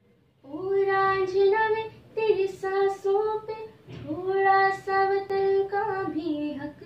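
A girl singing a slow, patriotic Hindi film song, holding long notes in three phrases.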